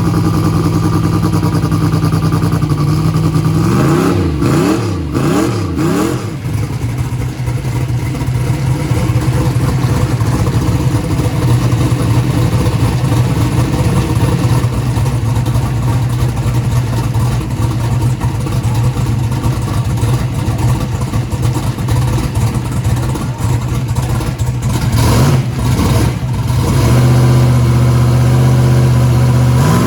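Turbocharged hot rod engine running with a steady note, blipped up and down in quick revs a few seconds in and again near the end, with a rise in revs at the very end.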